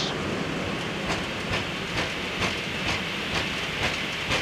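Boeing 777 rolling out along the runway after touchdown, its nose gear thumping about twice a second over the runway centreline light fittings, over the steady rumble of the flight deck.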